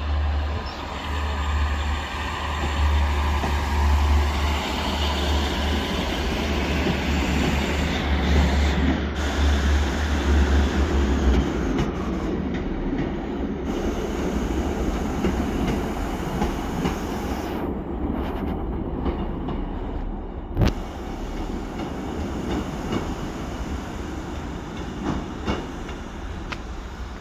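A train moving along the track past the microphone, with a heavy low rumble and wheel-on-rail noise that ease off through the second half. A single sharp knock comes about two-thirds of the way through.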